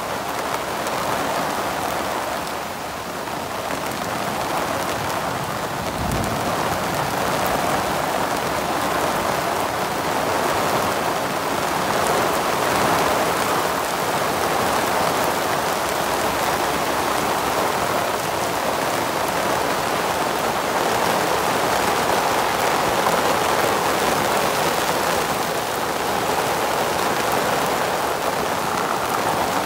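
Heavy thunderstorm rain pouring down steadily, a dense even hiss of rain on the surfaces around.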